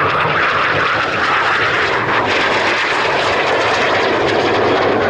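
Single Aermacchi MB-339 jet trainer flying by, its Viper turbojet giving a loud, steady jet noise.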